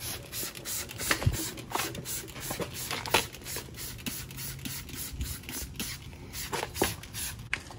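Hand trigger spray bottle squirted in a quick run of short hissing spritzes, thinning out after about three seconds.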